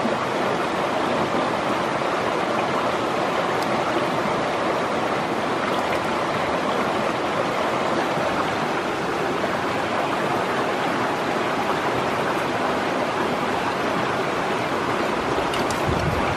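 Stream water rushing steadily over rocks, a constant even wash of noise.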